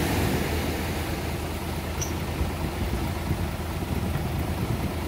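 Large farm tractor's engine idling steadily, with surf washing up the sand.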